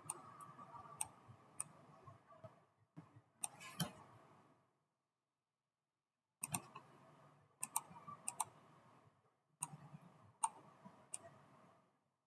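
Computer mouse and keyboard clicks: a dozen or so sharp clicks at irregular intervals, some in quick pairs, over a faint room hum that cuts out completely for over a second in the middle and again near the end.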